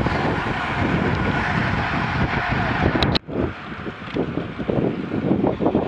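Wind buffeting the microphone of a camera riding along on a moving bicycle, a rough, fluttering rush. About three seconds in it breaks off with a short click and then picks up again.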